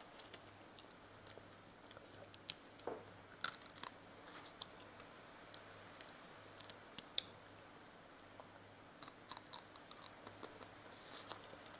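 Close-miked eating of steamed mud crab: chewing, lip smacks and finger sucking, with scattered sharp clicks and small cracks as shell pieces are picked apart. The clicks come thicker near the end.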